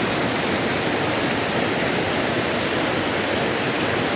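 Huay Kaew waterfall rushing with a steady, even roar of falling water; the water is running high.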